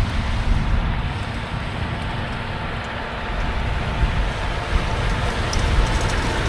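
Heavy farm machinery running steadily, a low rumble mixed with wind buffeting the microphone.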